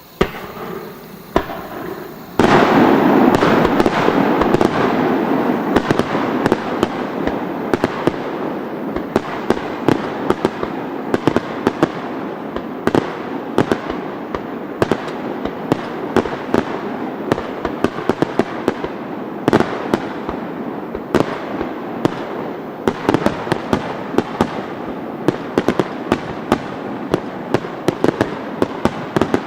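Extra-large star mine, a rapid-fire fireworks barrage. A couple of single bangs come in the first two seconds. Then, about two and a half seconds in, a dense unbroken barrage of shell bursts begins, with many sharp reports standing out.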